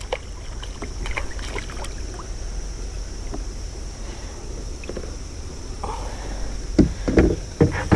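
A hooked bass being swung from the water into a kayak: faint scattered splashes, knocks and handling clicks over a steady low rumble and hiss. A few short louder sounds come near the end.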